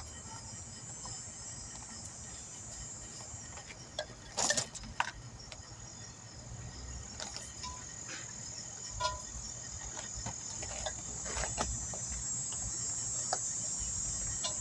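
Steady high-pitched chirring of crickets, growing slightly louder toward the end. Scattered short clicks and knocks cut through it, the loudest a brief clatter about four and a half seconds in.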